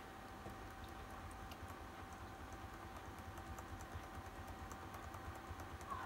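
Stone NT310-H laptop keyboard: a function key tapped over and over, light clicks at about four to five a second, during start-up to get into the BIOS.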